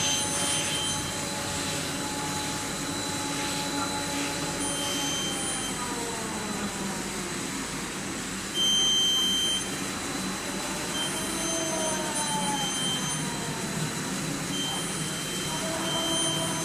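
HN1300R film inspection rewinder running: a steady machine noise with motor whines that glide down and up in pitch, and high-pitched tones that come and go. About nine seconds in, a loud high tone sounds for about a second.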